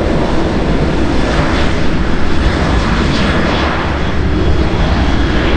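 Steady, loud jet-engine roar from a British Airways Airbus A380-841 and its four Rolls-Royce Trent 900 turbofans, heard as the aircraft arrives on the runway.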